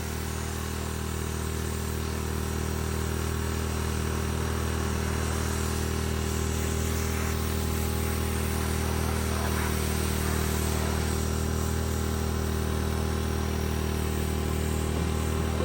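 Portable pressure-washer rig running steadily: a constant motor hum with the hiss of the water spray as a camper is rinsed.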